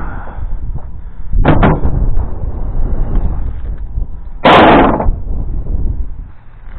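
Metal clanks from working an old chain and nails off a farm gate: two quick knocks, then a much louder clattering crash lasting under a second, over wind rumbling on the microphone.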